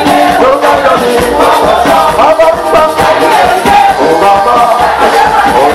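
A group of voices singing together into microphones, a lively Guadeloupean chanté Noël (Creole Christmas song) with musical accompaniment.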